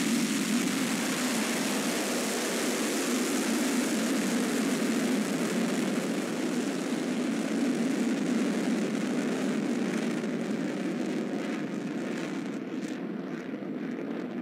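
Ballistic missile's rocket engine at liftoff and climb: a loud, steady rushing noise with a heavy low rumble, slowly thinning and easing over the last few seconds as the missile climbs away.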